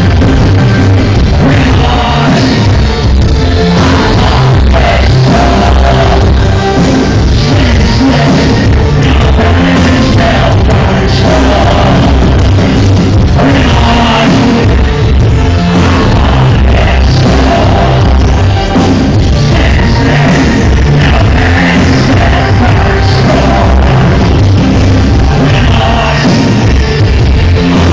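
Electro-industrial band playing live, with a singer's vocals over a heavy bass and drum beat, loud and without pause, recorded on a phone's microphone in a concert hall.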